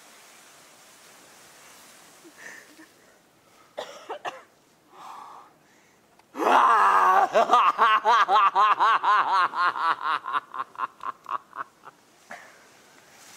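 A person laughing: one long, loud laugh that starts about six seconds in as a rapid ha-ha-ha of about five pulses a second, then trails off over some five seconds.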